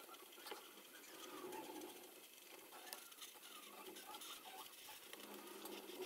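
Faint scratching of a felt marker's chisel tip rubbing across paper in short, irregular strokes.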